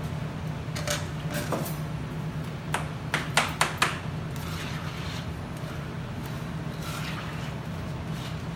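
Metal kitchen utensils clinking against metal: a ladle knocks sharply on the syrup pot and the metal tray four or five times around three seconds in, with a few lighter clinks before. After that comes softer scraping as a metal spatula spreads syrup over the knafeh in its tray, all over a steady low hum.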